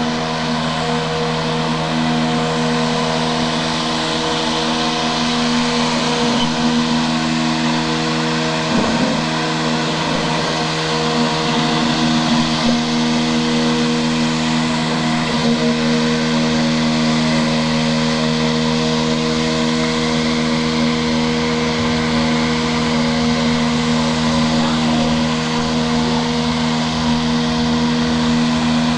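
Homemade robotic lawn mower's electric motors running as it drives over grass: a steady hum that holds one pitch, with a hiss over it.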